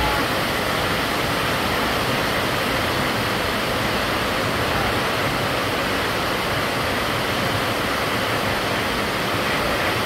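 A steady rushing noise, even and unchanging, with no distinct events in it.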